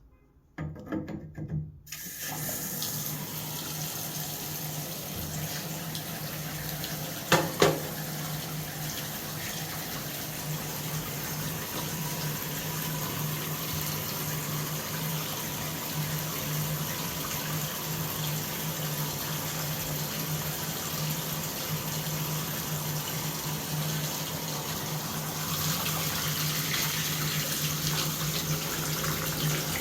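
Shower faucet running, a steady rush of water with a continuous low hum under it, the kind of noise this shower valve makes behind the handle when the hot water is on. There is a brief knock about seven and a half seconds in.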